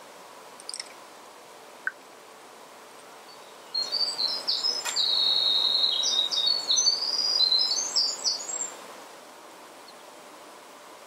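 An unidentified songbird singing one rapid, jumbled song of high, quickly changing notes lasting about five seconds, starting about four seconds in. A couple of faint chirps come before it, over a steady background hiss.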